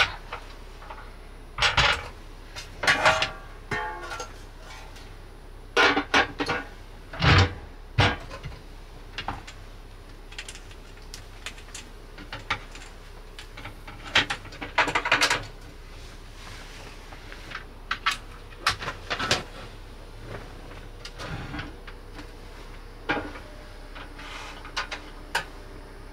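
Irregular clinks, knocks and clatters as the pan and lid of a compact electric hot plate are handled and set down on the table, a few with a short metallic ring.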